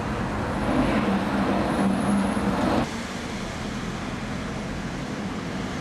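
Road traffic noise: a steady hum of passing vehicles, which drops abruptly to a quieter level about three seconds in.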